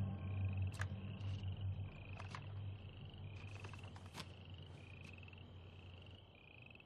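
Stock sound effect of crickets chirping, faint, a short slightly falling chirp a little more than once a second, with a low drone fading out over the first two seconds and a few sharp ticks.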